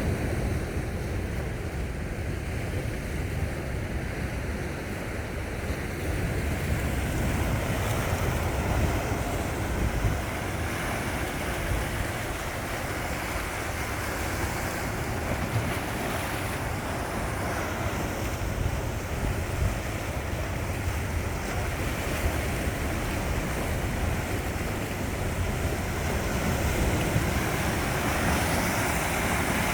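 Sea waves washing on the shore, with wind buffeting the microphone as a low rumble. The surf swells and eases without pause.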